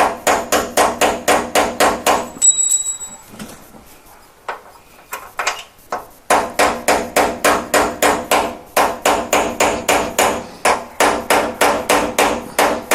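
Hammer striking a fine pin punch in rapid metallic blows, about four a second, each with a short ring, driving a worn hinge pin out of a classic Mini's external door hinge. The blows stop for a few seconds about two seconds in, with only a few lighter taps, then resume steadily.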